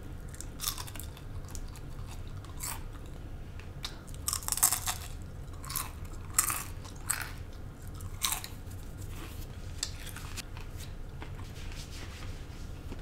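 Close-miked crunching and chewing of crunchy food. The loudest crunches come about four to five seconds in, and the rest follow about a second apart, thinning out near the end.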